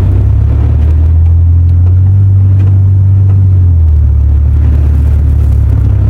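Gale-force wind buffeting a truck moving at about 35 mph, heard from inside the cab as a loud, steady low rumble, with faint ticks of wind-blown sand striking the body.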